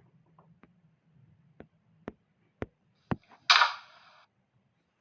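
A handful of light, sharp clicks or taps about half a second apart, then a short, louder burst of noise about three and a half seconds in.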